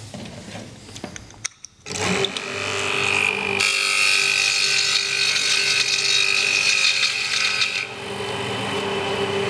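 Pool pump's electric motor switched on about two seconds in and running, its cooling fan scraping against the fan hood: a high scraping noise over a steady motor hum, strongest through the middle and easing near the end. The noise means the fan hood has been pushed out of place so the fan rubs on it, not that the pump is broken.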